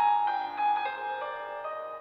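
Background music: a simple piano melody of single notes struck one after another, each ringing on briefly.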